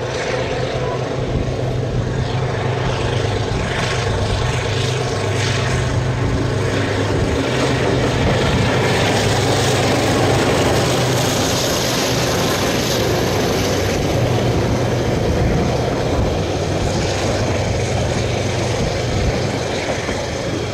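Two Mitsubishi-built DJ class diesel-electric locomotives hauling a passenger train past at speed, with a steady low engine drone and wheel-on-rail noise over a timber trestle bridge. The sound is loudest as the locomotives pass close, about ten seconds in.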